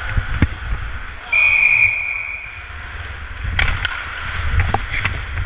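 Ice hockey play heard from a player's camera: skates on ice and a steady rumble of wind on the microphone, cut through about a second in by one short, steady whistle blast, the loudest sound. Near the end come several sharp clacks of sticks and puck.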